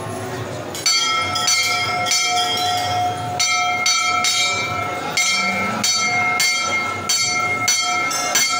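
Hanging metal temple bell struck over and over, starting about a second in, at roughly two to three strikes a second, its ring carrying on between strokes as a steady tone.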